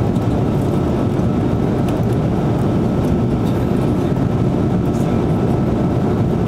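Airbus A330-200 jet engines and airflow heard inside the passenger cabin during the climb after take-off: a steady, even noise, mostly low in pitch, with a faint thin tone above it.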